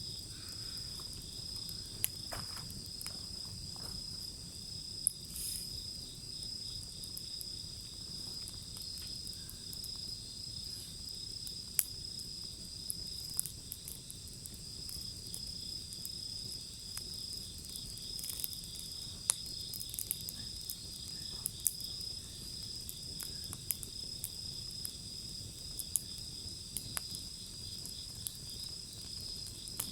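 Wood bonfire crackling, with sharp pops scattered irregularly through it, over the steady high-pitched trilling of insects.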